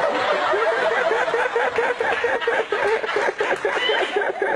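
Studio audience laughing together, many voices at once, without a break.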